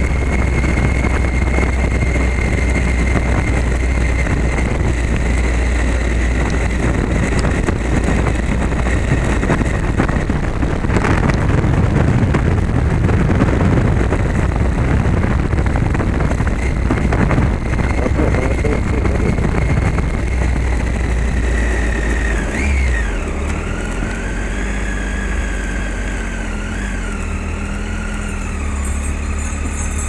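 Motorcycle engine running steadily on a ride over a cobbled road, with rumble from the tyres on the cobbles. Towards the end the engine note drops and wavers as the bike slows down.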